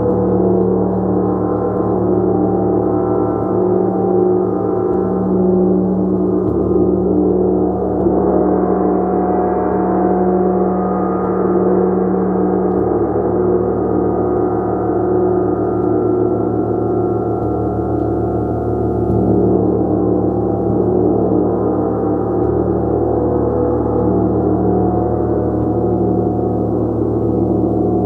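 Gong played continuously: a dense, sustained wash of many overlapping low and middle tones at a steady level, with no breaks between strokes. The upper shimmer brightens a little about nine seconds in.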